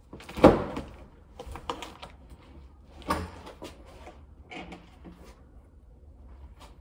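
Knocks and clatter of objects being handled and set down, with a loud knock about half a second in and another just after three seconds, and lighter knocks in between.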